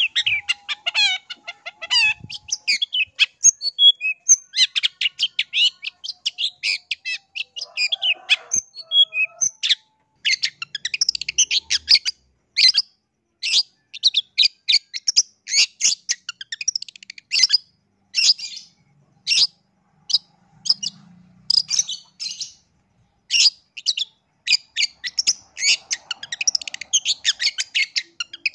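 Long-tailed shrike singing a fast, chattering run of short, high notes. There is a brief break about ten seconds in and a sparser stretch around twenty seconds.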